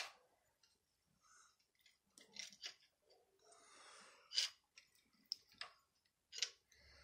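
Faint, scattered clicks and scrapes of hand tools working on a small-block Chevy's valvetrain. A homemade pushrod lever tool presses down a valve spring on the cylinder head. The loudest click comes about four seconds in.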